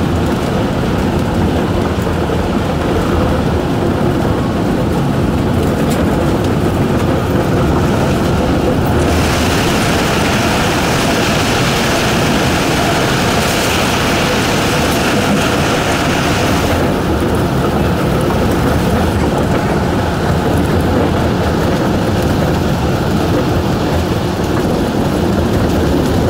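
Running noise inside a Shonan Monorail car, a rubber-tyred suspended monorail under way: a steady rumble and rush. A brighter hiss joins it for several seconds in the middle.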